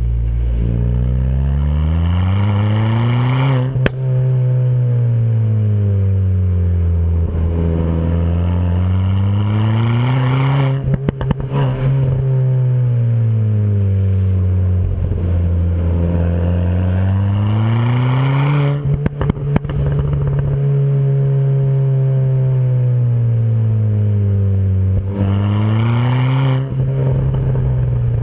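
Ford Fiesta ST Mk7.5's turbocharged 1.6 EcoBoost four-cylinder, tuned to Mountune MP215 stage 1, heard at the tailpipes of a Milltek straight-through race exhaust with the standard cat, revving up and easing off four times on the road. Short crackles come in as the revs peak and fall away.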